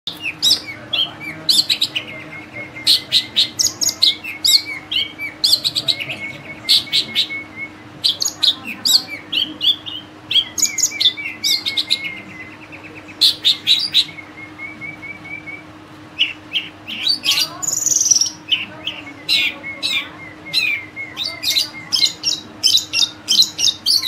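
A caged long-tailed shrike (cendet) singing hard: a fast, varied run of chattering notes, trilled rattles and whistles, a song filled out with phrases learned from other birds. A faint steady hum runs underneath.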